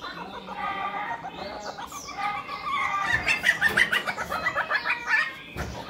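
Rapid chattering, clucking-like animal calls that grow busier and louder about halfway through.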